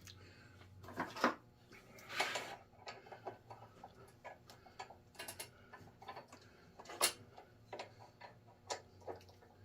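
Irregular light clicks and knocks of a thread tap and tap handle being worked into a damaged threaded hole in an engine block, the tap hard to get started.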